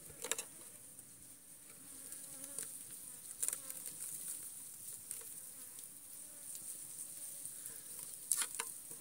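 Steady high-pitched chorus of insects, with a few brief clicks or rustles shortly after the start, about three and a half seconds in, and near the end.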